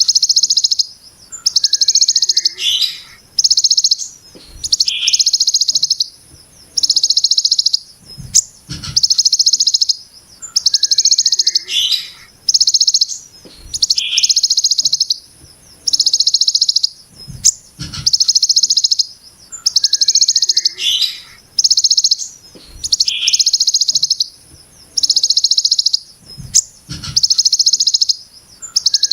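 Kolibri ninja (a sunbird kept as a cage songbird) singing harsh, rapid buzzing 'brem' phrases in the style of the hill prinia (ciblek gunung), each about a second long and repeated every second or two. Short high chirps fall between the buzzes.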